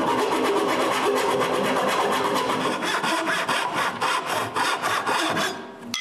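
Hand saw cutting a notch into a wooden board, in quick, rapid scratchy strokes that stop about five and a half seconds in.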